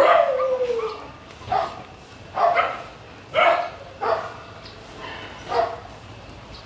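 Shelter dogs barking repeatedly, roughly once a second; the first bark is drawn out into a short howl that falls in pitch.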